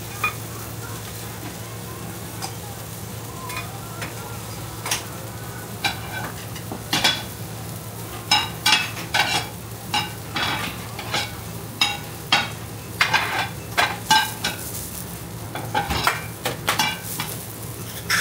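Metal spatulas scraping and clacking on a steel teppan griddle while a noodle pancake sizzles on it. The strokes are scattered at first, then come in quick runs through the second half.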